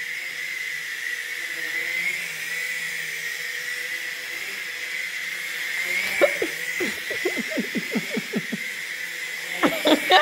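Small toy quadcopter drone flying, its propellers giving a steady high whine. About six seconds in, a quick run of short rhythmic sounds joins it and grows louder near the end.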